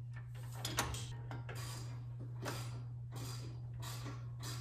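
Ratchet wrench being worked back and forth on a sway bar end link nut, clicking in a short burst on each stroke, a regular run about every two-thirds of a second starting about a second in.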